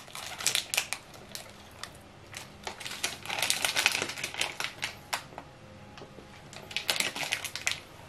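Plastic protein-bar wrapper crinkling as it is opened and handled: irregular crackles and sharp clicks in several bursts with quieter gaps between.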